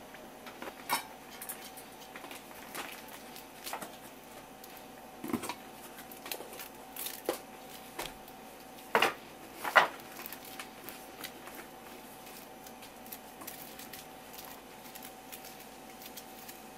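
Aluminium pots and a saucepan being handled on a wooden board: scattered light clinks and knocks of metal. The loudest are two sharp knocks close together about halfway through. A faint steady hum runs underneath.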